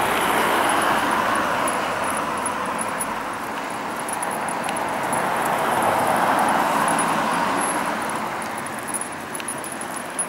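Road traffic passing: two vehicles go by one after the other, each swelling up and fading away.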